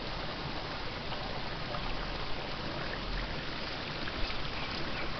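Steady rush of water, with a few faint ticks scattered through it.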